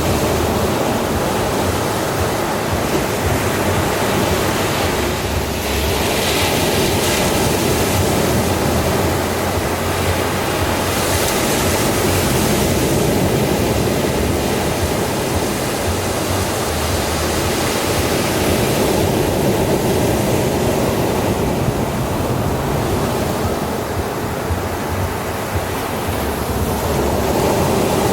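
Ocean waves breaking on a beach in a steady wash of surf, with swells of hiss about six and eleven seconds in.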